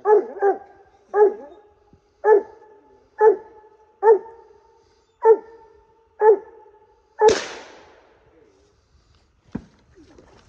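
A coonhound giving short chop barks, about one a second, some nine in all. The last bark, about seven seconds in, is harsher and louder with a longer tail, and then the barking stops.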